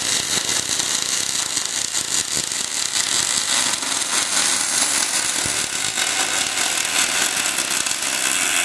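A robot's welding arc burning on a steel square-tube truss joint: a steady, loud crackling hiss from the wire-fed torch.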